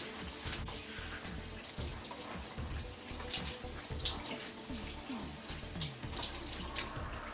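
Filtered shower head spraying a steady stream of water, with short splashes now and then as hair is washed under it.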